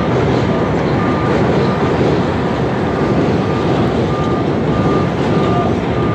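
Loud, steady roar of city traffic on the street and overpass, with a short high electronic beep repeating about every half second to second, typical of a vehicle's alarm.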